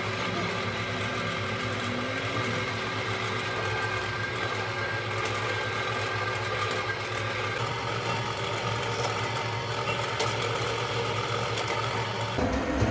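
A motor-driven machine running steadily with an even hum and whine. Its tone shifts slightly about halfway through and changes abruptly just before the end.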